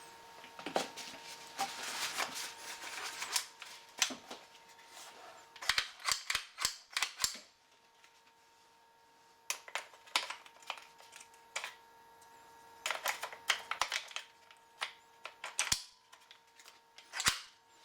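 Sharp clicks and knocks in short clusters with quiet pauses between them, from hands working a Ruger 10/22 rifle in its polymer Magpul Hunter X22 stock while its takedown screw is hand-tightened with an Allen key. A faint steady hum sits underneath.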